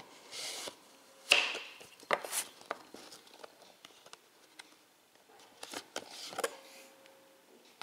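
A cardboard disc digipak being handled: a disc scraping in its tight cardboard slot, with several sharp taps and clicks. The loudest click comes about a second in.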